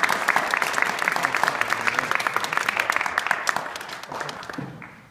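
Audience applauding after a cello piece, with the clapping thinning out and dying away near the end.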